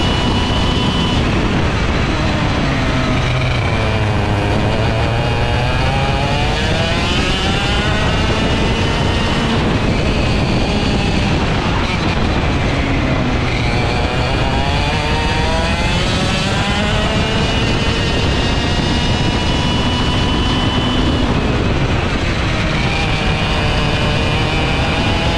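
Vortex Rok GP 125cc single-cylinder two-stroke kart engine heard from the driver's seat at racing speed, its revs dropping and climbing back up several times as the kart goes through the corners.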